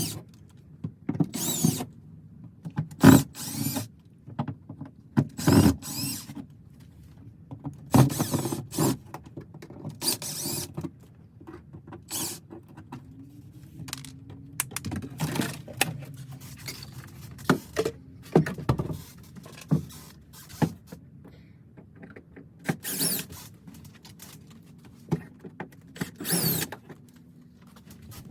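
Cordless drill run in a dozen or so short bursts, as when driving out screws, with knocks and handling noise of panels between the bursts.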